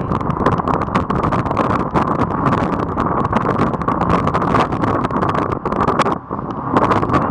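Wind buffeting the microphone in gusts over the steady running of a sportfishing boat's engine and water rushing along the hull through choppy sea.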